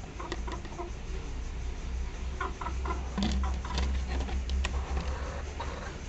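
Chickens making soft, short clucks among scattered light clicks, over a steady low rumble.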